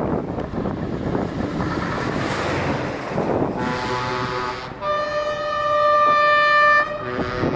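Heavy truck diesel engines pulling away under load, then a truck's multi-tone air horn held for about two seconds, loud and steady, from about five seconds in.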